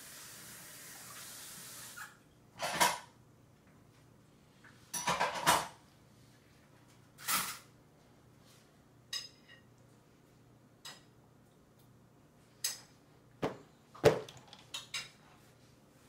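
Running tap water stops about two seconds in, followed by scattered clatters and clinks of dishes and cutlery being handled, about ten in all and clustered near the end.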